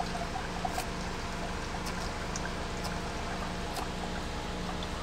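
A few faint, sharp snips of hand pruning shears cutting zucchini stems and leaves, over a steady hum and hiss.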